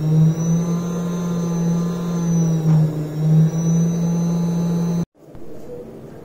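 A 250 W, 12 V permanent-magnet DC motor with a pulley on its shaft running free at speed, a steady hum with a high whine, edging up in speed as the supply voltage is turned up past 20 volts. The sound cuts off suddenly about five seconds in.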